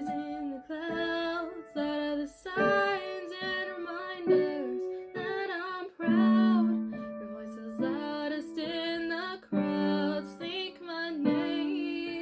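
A woman singing an original ballad over piano accompaniment, in an unprocessed raw vocal take.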